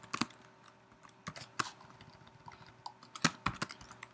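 Typing on a computer keyboard: scattered key clicks in short irregular runs, with a lull in the middle and a quicker run near the end.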